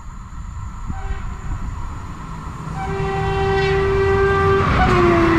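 Train horn: a short toot about a second in, then a long blast that drops to a lower pitch near the end, over the growing rumble of the train running past.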